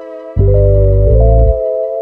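Background music: held keyboard chords over a deep bass note that comes in about a third of a second in and is struck again just past one second.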